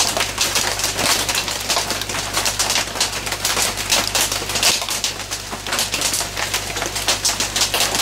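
Hard rain on a shed's tin roof: a dense, irregular popping, with a steady low hum underneath.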